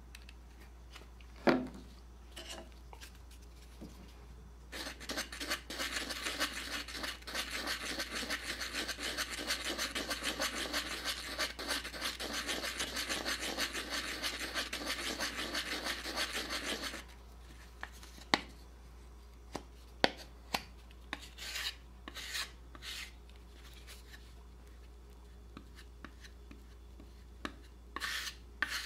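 Putty knife scraping rapidly back and forth on a scrap wood board, mixing two-part wood filler, for about twelve seconds. A sharp tap comes shortly before, and a few short scrapes follow.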